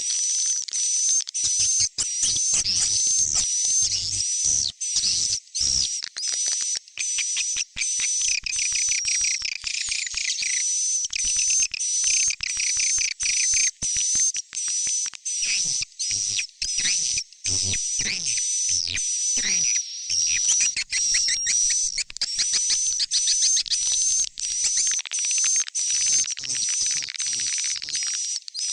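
Swiftlet lure call (suara panggil walet, chick-call variant): a dense, rapid run of high twittering chirps from edible-nest swiftlets, going on without a break apart from brief gaps.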